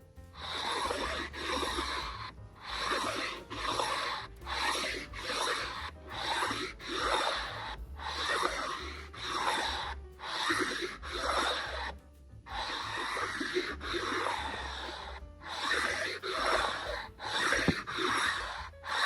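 Abrasive stone pushed back and forth by hand across an engine block's deck, a steady rhythm of scraping strokes about one and a half a second with a few short pauses. This is the block being lapped flat to take out its warpage.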